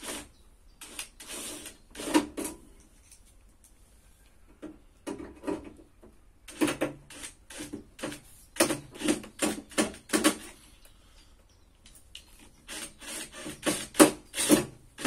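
Hand screwdriver turning cross-head screws out of a sheet-metal appliance casing: irregular scraping and rubbing strokes, in quick runs of several a second around the middle and again near the end, with quieter pauses between.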